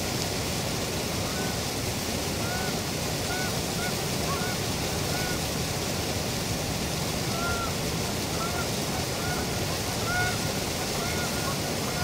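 Steady rush of water at a dam, with many short, arched waterfowl calls scattered through it.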